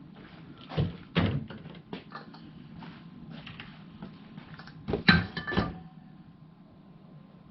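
Knocks and clunks of parts being handled during tool cabinet assembly: a cluster about a second in and another about five seconds in.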